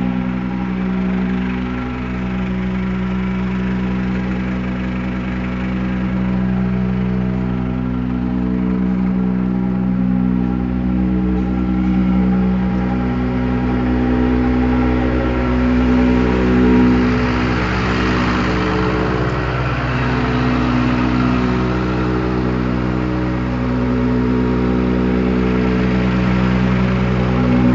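New Holland TS115 tractor's diesel engine running steadily at constant speed. A rushing hiss rises over it for a few seconds midway, then fades.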